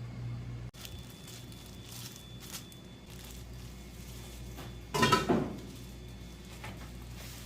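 Dishes and eating utensils clinking, with one louder clatter about five seconds in, over a low steady hum.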